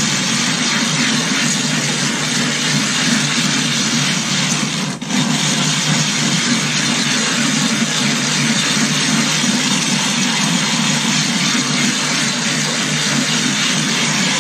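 Silicon carbide sharpening stone being ground back and forth on a glass plate with loose coarse silicon carbide grit and water: a continuous gritty rasping, with a brief break about five seconds in. Its pitch changes as the loose grit breaks down into slurry, the sign that this charge of grit is nearly spent.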